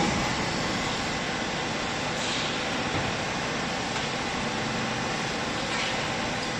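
Steady mechanical running noise of a hydraulic cloth baler's power unit, an even hum and hiss that stays level throughout.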